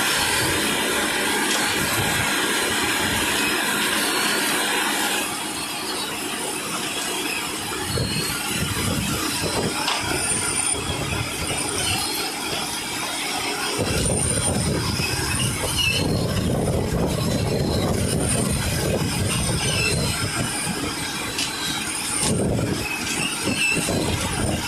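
Self-loading concrete mixer working: machinery noise with metallic squealing and clatter. It changes abruptly about five seconds in, and a heavier low rumble takes over about halfway through.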